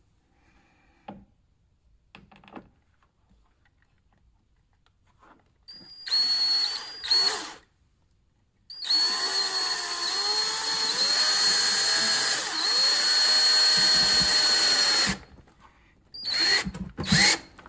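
Cordless drill driving a screw through a spacer into the plastic of a fender flare. After a few quiet seconds with small clicks, the drill runs in two short bursts, then for about six seconds with its pitch dipping and rising, then in two quick bursts near the end as the screw is snugged down.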